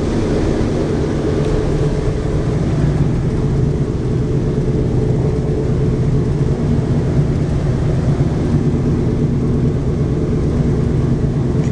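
Boeing B-17 bomber's Wright R-1820 Cyclone radial engines running steadily, a loud, even, low-pitched drone heard from inside the fuselage.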